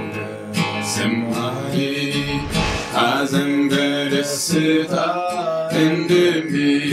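A man singing with a strummed acoustic guitar, the voice holding long notes over the chords.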